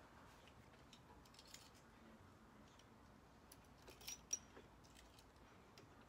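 Faint clicks and light taps of hands and a tool working loose a motorcycle's plastic lower fairing panel, with a few quick clicks a little before four seconds in and one sharp click just after.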